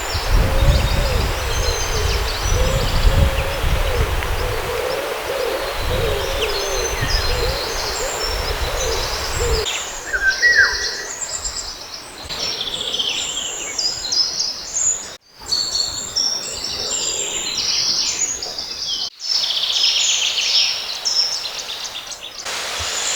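Wild birds calling: a low hooting call repeated over and over, with a low rumble beneath, for the first ten seconds, then small songbirds singing in high chirps. The sound cuts off and changes abruptly several times.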